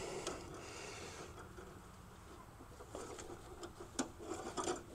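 Wrench working a tight brake-line flare nut on an ABS modulator: faint metal-on-metal scraping, with a few small clicks toward the end and a sharper one about four seconds in.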